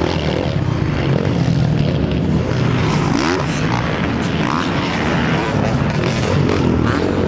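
Several motocross bikes' engines racing on a dirt track, revving up and down through the gears, with one sharp rev sweep about three seconds in.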